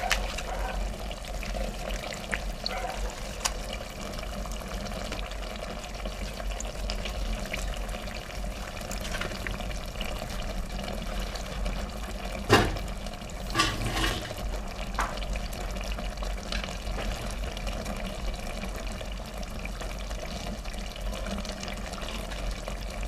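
Water running or pouring steadily, with a sharp clack about twelve seconds in and a few smaller knocks just after.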